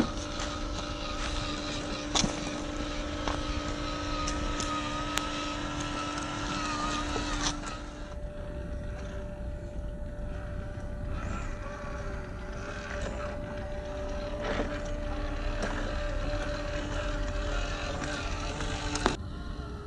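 Electric motor and gearbox of a 1/10-scale WPL C74 Suzuki Jimny RC crawler whining steadily as it drives over gravel and rocks, with scattered clicks and knocks from tyres and stones. The whine changes pitch about eight seconds in, and a sharp knock comes near the end.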